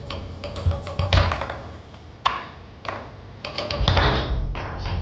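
Foosball being played on a Tornado table: the ball is struck by the men and knocks off the walls, with rods clacking, in sharp irregular knocks and a quick flurry of clicks near the end.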